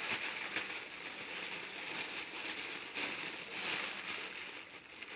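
Thin plastic sandwich bag filled with cut taro crinkling continuously as it is pressed flat to push the air out and then tied.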